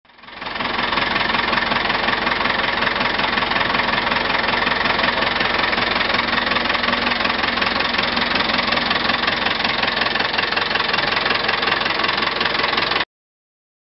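Zetor 4011 tractor's four-cylinder diesel engine idling steadily with an even, rapid diesel clatter. It fades in at the start and cuts off abruptly near the end.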